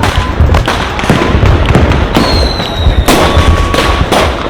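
Fireworks sound effect: a dense, loud barrage of bangs and crackles over low booms, with brief whistling tones partway through.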